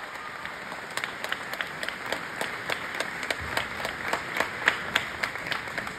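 Audience applauding, with many individual claps standing out.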